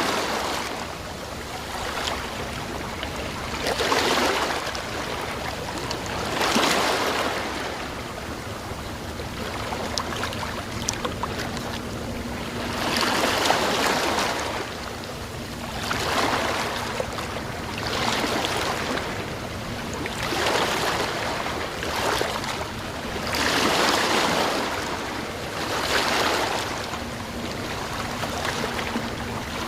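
Sea waves washing in and breaking, a surge of surf every two to three seconds over a constant wash of water.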